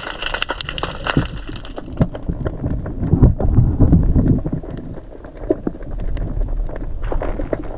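Underwater sound picked up by a submerged camera: dense crackling clicks over a low rumble of moving water, the rumble swelling loudest about three to four and a half seconds in.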